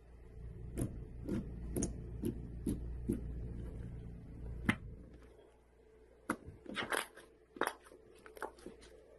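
Slime being pressed and squeezed by hand, giving sharp clicks and pops, about two a second at first, then a quick cluster of them after a short lull.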